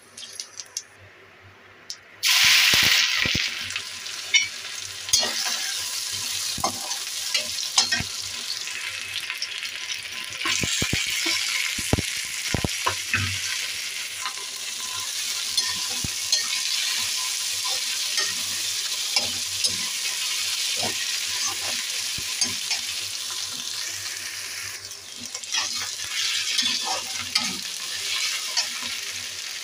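Shredded cabbage frying in hot oil in a wok-style pan: a steady sizzle that starts suddenly about two seconds in, with a slotted metal spatula stirring and scraping against the pan in scattered clicks and knocks.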